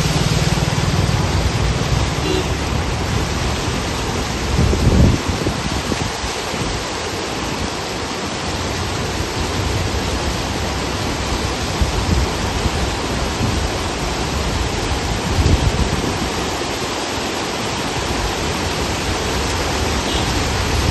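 Steady rushing noise of rain and floodwater flowing across a road. A vehicle engine hums under it for the first couple of seconds, and there are brief low rumbles about five and fifteen seconds in.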